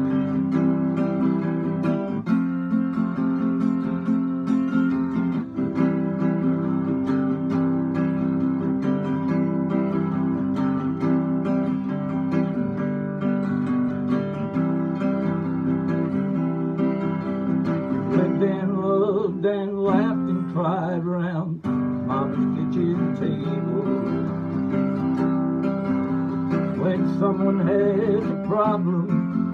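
Acoustic guitar strummed steadily through an instrumental break in a country song. A wordless voice line glides in about two-thirds through and again near the end.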